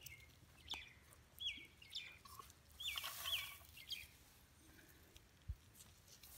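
Faint bird chirps: several short, high calls, each dropping in pitch, in the first half. There is a brief rustle in the middle and a single dull thump near the end.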